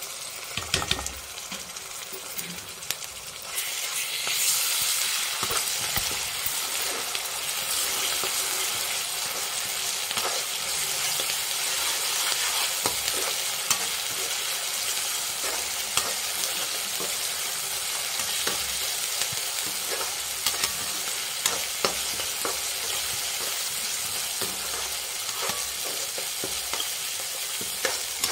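Onions, ginger-garlic paste and chopped green chillies sizzling in hot oil in a deep pan, with a spatula stirring and scraping and clicking against the pan now and then. The sizzle grows louder about three and a half seconds in.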